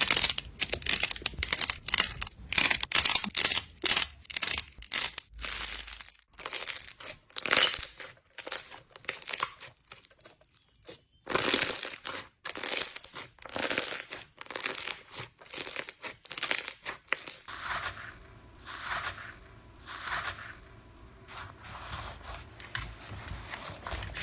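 Slime being squeezed, pressed and stretched by hand, giving dense crackling and crinkling. About two-thirds of the way through the crackles turn sparser and quieter over a faint low hum, with one sharp click a little later.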